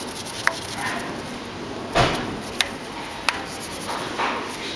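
A wheel brush scrubbing a wet alloy wheel, with a few sharp knocks as it strikes the rim and spokes, over a steady hiss.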